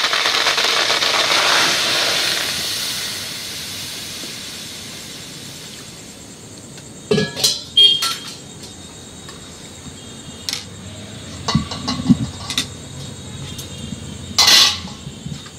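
Water poured into a metal karahi of chickpeas set over a wood fire, a rushing hiss that fades away over the first few seconds. Then a handful of metal clanks and knocks, with a ladle going into the pan near the end.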